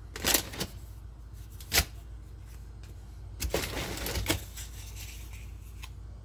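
Dry rectangular biscuits being handled and laid onto a layer of cream in a glass dish: a few light clicks and taps, with a short stretch of rustling about three and a half seconds in.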